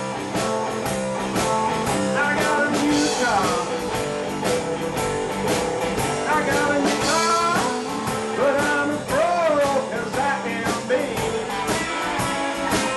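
Live blues band between sung lines: electric guitar playing fills with bent notes over a steady drum kit beat.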